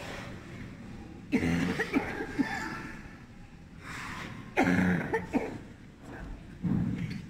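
Three short, loud vocal sounds from a person close by.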